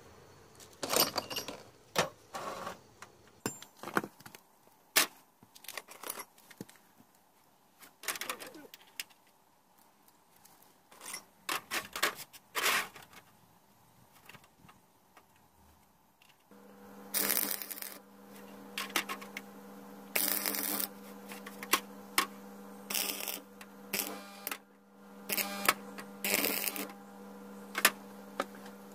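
Steel rods clinking and knocking as they are handled on a sheet-metal table. About halfway through, a steady hum sets in, with several short bursts of stick-welding arc crackle as a T-handle is tack-welded onto a hex rod.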